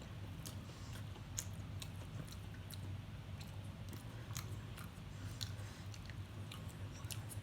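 A person chewing a mouthful of tater tots and chicken patty, with irregular short wet mouth clicks. A steady low hum runs underneath.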